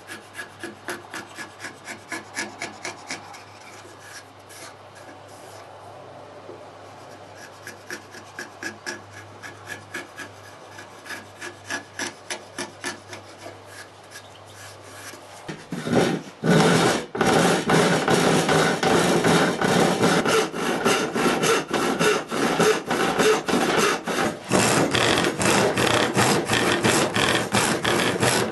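Hand tool filing wood: light, quick scraping strokes in short runs across the end grain of a small wooden piece. About halfway through, much louder and steadier rasping strokes on wood take over.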